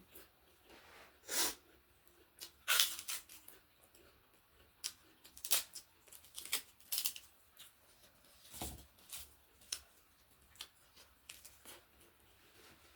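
Close-miked eating sounds: irregular crisp crunches and mouth clicks of chewing food, with a duller low thump a little under nine seconds in.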